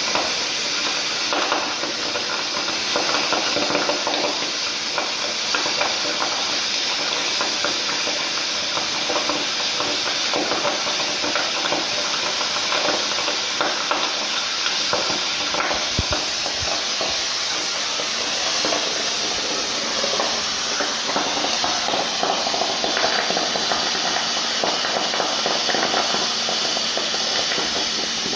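Oxy-fuel cutting torch on a CNC flame-cutting table burning through 5-inch steel slab: a steady hiss of the cutting jet, with a constant crackle from the molten metal and slag.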